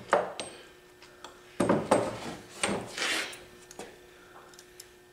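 Metal hand tools clinking and scraping against a cast-iron compressor crankcase as a long socket extension and loosened parts are handled: scattered sharp clanks, with a loud cluster about a second and a half in and scraping near three seconds.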